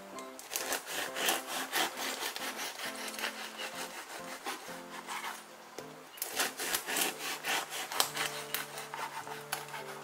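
Long knife sawing back and forth through the crust of a day-old rye pain de campagne, rapid rasping strokes in two spells with a short lull between. The sound is dull rather than crisp: the crust has softened after a day, in humid rainy weather.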